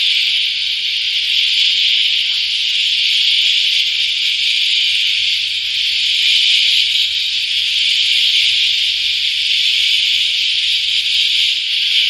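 A chorus of cicadas singing: a loud, continuous high-pitched buzz that swells and eases slightly without a break.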